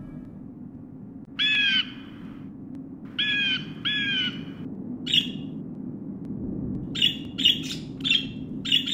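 Parakeets calling: three drawn-out squawks in the first half, then a quickening run of short, sharp calls, over a steady low background noise.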